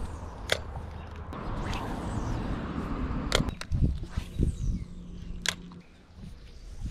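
A spinning rod and reel being cast: sharp clicks from the reel and a swish of the rod through the cast.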